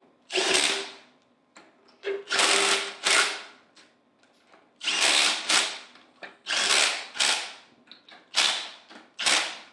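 Cordless impact driver with a socket running bolts down on the head of a Hypro D50 diaphragm pump, in about nine short bursts, often two close together. This is the pump head being bolted back on after a new diaphragm has been fitted.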